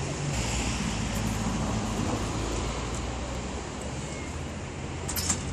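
Steady low hum of a running engine, with a few sharp clicks about five seconds in.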